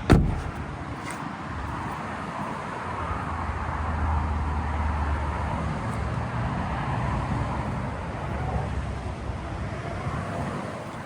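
One loud, sharp thump right at the start, then a steady low rumble with a noisy hiss over it.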